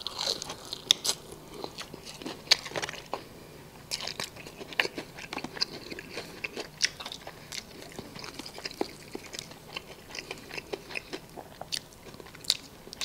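Biting into and chewing crispy fried chicken: the breaded crust crunches and crackles, most densely in the first second or so, then in scattered crunches as the chewing goes on.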